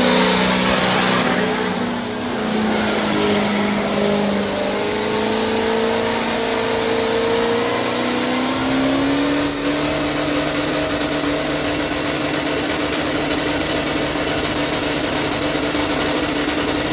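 A lifted pickup truck's engine held at high revs under heavy throttle during a burnout, its pitch climbing slowly and then holding, over a loud, dense rushing noise.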